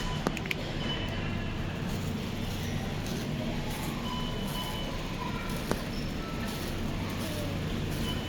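Supermarket ambience: a steady low hum and rumble, as of refrigeration and a shopping cart rolling, with a few faint short beeps and small clicks.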